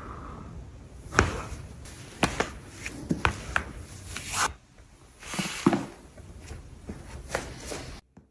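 Chiropractic adjustments: several sharp joint cracks and knocks, spaced a second or so apart, with short bursts of rustling between them over a low background hum. The sound cuts off suddenly just before the end.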